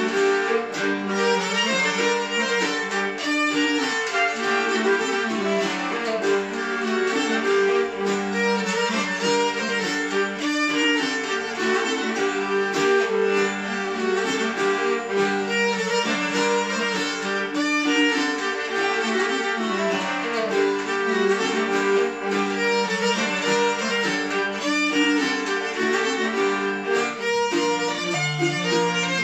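A Swedish polska played by a folk trio: nyckelharpa bowing the tune with clarinet, over a plucked mandolin-family instrument.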